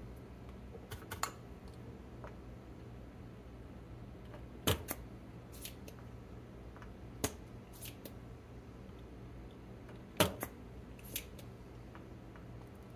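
Scattered sharp clicks and taps of small hand tools and metal parts being handled at a workbench, about eight in all, the loudest near the middle and about three quarters of the way in, over a steady low hum.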